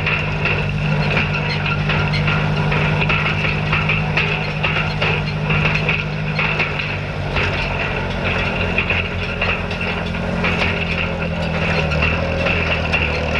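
Tractor engine running steadily while raking hay, with a constant busy clatter over it; the engine note shifts slightly near the end.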